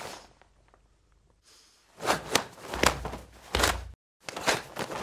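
Hayate NF-1 karate gi snapping sharply as the karateka throws fast strikes and blocks: a run of about six cracks of the cloth, starting about two seconds in, some with a dull thud of a stance or step.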